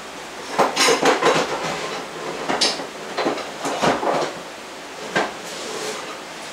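Metal pieces clattering and clinking together as a hand rummages through them in a drawer: the aluminium profile sections of a Festool multi-routing template. The clatter comes in several short irregular bursts.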